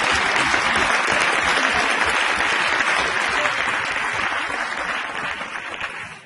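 Audience applauding in a hall, thinning out and dying away near the end.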